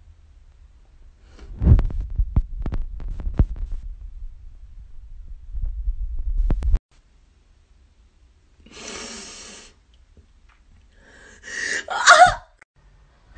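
A few seconds of handling bumps and clicks on a phone microphone stop abruptly. Then comes a breathy sigh, and near the end a woman's short, pitched cry of dismay, the loudest sound.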